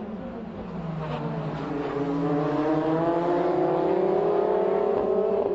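Formula Renault 2.0 single-seaters' 2.0-litre four-cylinder engines on track. The engine note falls in pitch in the first second or so, then climbs steadily as the cars accelerate.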